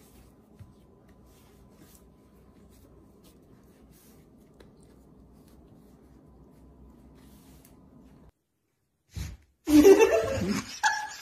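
Faint steady hum for about eight seconds, then a short gap. Near the end comes a sudden loud burst of a person's voice with noise.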